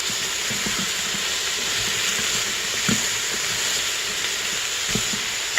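Onions, garlic and mushrooms sizzling steadily in olive oil in a Mealthy Multipot electric pressure cooker on its sauté setting, with a few brief knocks.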